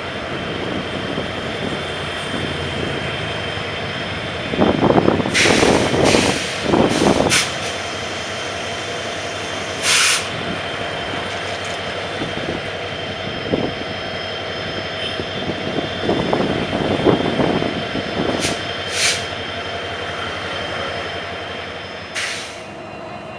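CC 205 diesel locomotive engine running steadily. Short hissing bursts come several times, along with two louder rough stretches, one about five seconds in and one near seventeen seconds.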